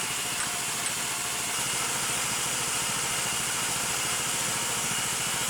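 Homemade bandsaw mill's engine running at a steady speed, an even pulsing drone.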